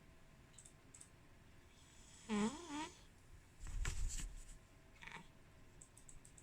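Sleeping cat snoring. About two seconds in comes a short wavering, whistly snore, followed about a second later by a breathy, rasping breath, then a fainter one.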